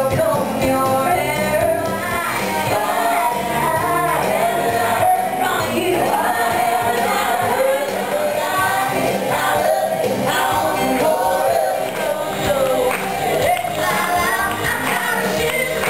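Stage-show music: several singers together, with instrumental accompaniment.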